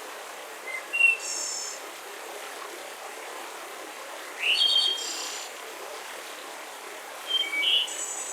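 Wild songbirds singing three short, high-pitched phrases a few seconds apart over a steady background hiss of forest ambience.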